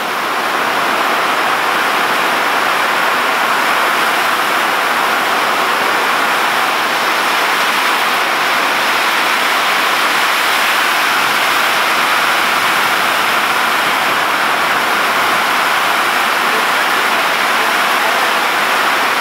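Heavy downpour of rain: a loud, steady hiss that does not let up.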